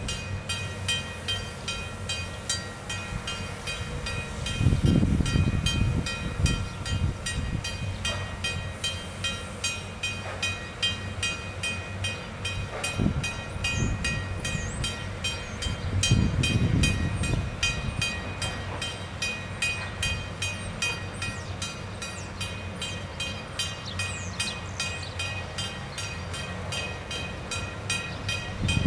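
A warning bell at a railway crossing ringing steadily, about three strikes a second, as a train approaches. Gusts of wind buffet the microphone a few times.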